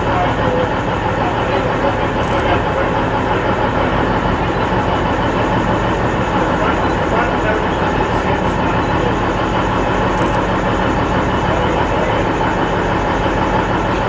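XPT diesel power car engines running under steady power as the train departs, a loud, even drone with no change in level.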